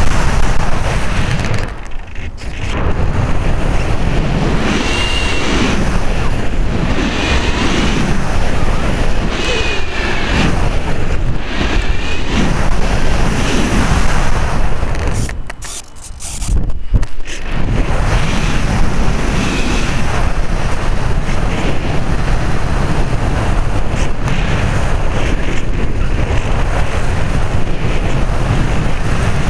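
Loud rushing wind noise from the airflow over an onboard camera on a model airplane in flight. It briefly drops away twice, about two seconds in and again about halfway through.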